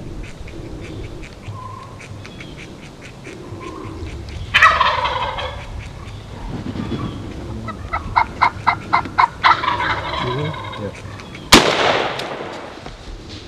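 Wild turkey gobbler gobbling loudly about four and a half seconds in, then a quick run of sharp cutting calls and another gobble. A single shotgun blast follows near the end.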